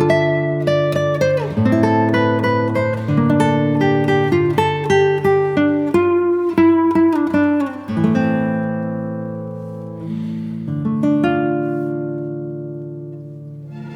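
Instrumental music: a plucked guitar playing a melody of separate picked notes, starting suddenly out of silence. From about eight seconds in, the notes are left ringing and slowly fade, and the picking comes back near the end.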